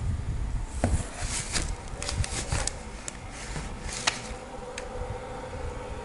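Packaging handled by hand: scattered knocks and clicks with bursts of crinkly rustling, and a faint steady hum in the second half.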